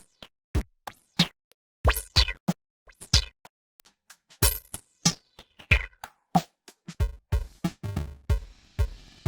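Electronic drum-machine beat played through Stagecraft's BitCrusher plugin: sparse kick and snare hits with short silent gaps between them. From about seven seconds in the hits come faster and closer together.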